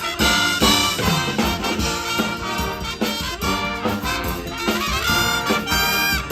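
Live pep band playing an upbeat tune, brass horns carrying the melody over drums, with a rising slide in the horns near the end.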